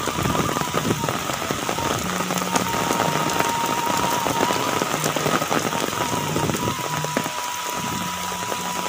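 Heavy rain pouring down on thatched and clay-tile roofs and a puddled yard: a dense, steady patter of drops.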